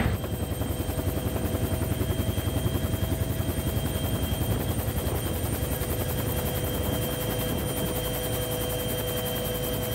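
Helicopter in flight: a steady, rapid rotor chop with a steady engine whine over it.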